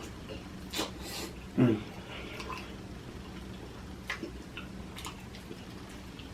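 Mouth eating sounds on seafood boil: scattered wet smacks and clicks of chewing over a steady low hum, with a brief low voiced sound about a second and a half in.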